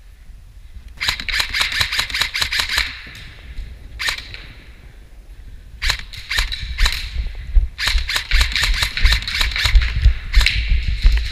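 Airsoft rifles firing rapid bursts of shots: one burst about a second in, a single shot, then longer strings of fire toward the end.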